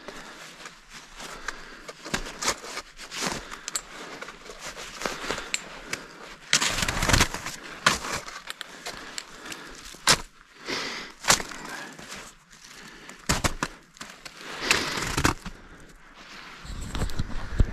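Footsteps pushing through dense forest undergrowth, with twigs snapping and branches brushing past in irregular crackling bursts, several of them louder.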